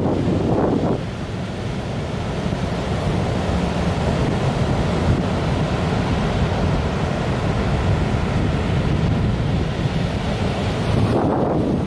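Heavy typhoon surf breaking in a steady rush of white water, with wind buffeting the microphone. The waves are large and closing out.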